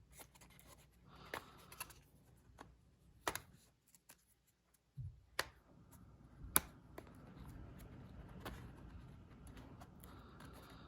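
Faint handling of a flashlight's retail packaging: scattered small clicks and taps, with soft rustling and scraping of the box from about six seconds in as it is worked open.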